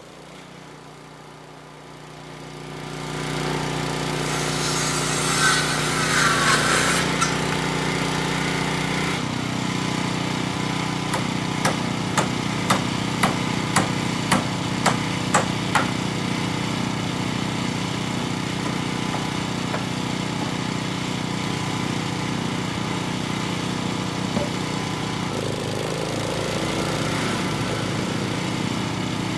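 About nine hammer blows on a wooden frame, roughly two a second, in the middle. Under them a small engine runs steadily, fading in over the first few seconds.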